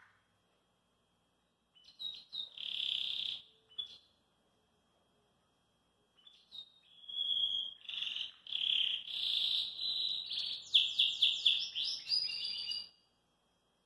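Domestic canary singing: a short phrase about two seconds in, then after a pause a longer song of trills that ends in a quick run of repeated notes and stops about a second before the end.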